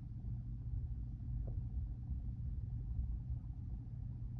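Low, steady rumble of a passing freight train.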